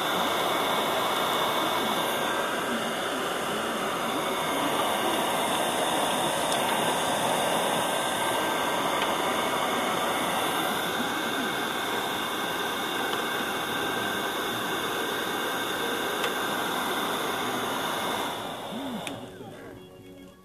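Steady, loud rush of blown air, cleaning dust out of an Elgin sewing machine, fading out near the end.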